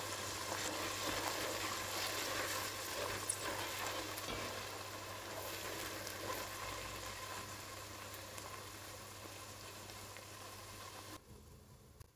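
Chopped sweet green peppers sizzling in olive oil in a stainless steel pot while a silicone spatula stirs them. The sizzle slowly fades and cuts off suddenly about a second before the end.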